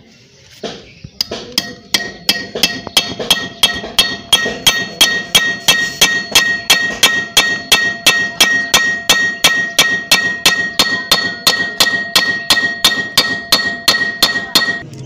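Hammer tapping steadily on a steel shaft set in the needle-bearing bore of a Honda CD70 crankcase, about three ringing metallic strikes a second. Each tap presses candle wax packed into the blind bore against the needle bearing, working it out hydraulically.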